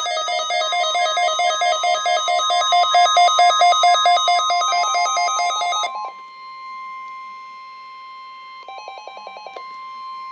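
Electronic alert signal of a NOAA Weather Radio Emergency Alert System weekly test. A fast, evenly pulsing beep pattern stops suddenly about six seconds in. A quieter steady tone follows, with a short burst of pulsing beeps near the end.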